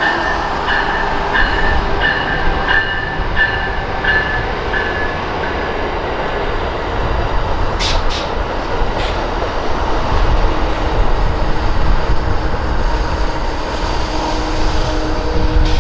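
Amtrak passenger train with a diesel locomotive arriving and rolling past, giving a steady heavy rumble of wheels on rail. A bell rings about every half second over the first five seconds. A few sharp clicks come around eight seconds in, and a steady low tone sets in for the last few seconds.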